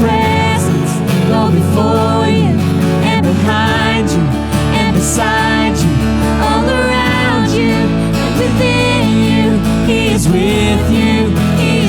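Church worship band music: voices singing over guitar and bass, with the bass moving to a new note every few seconds.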